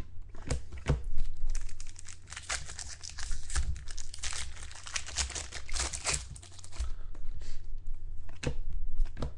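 Trading-card pack wrappers crinkling and tearing as packs are ripped open and handled, in dense crackling strokes that thin to a few scattered clicks after about seven seconds.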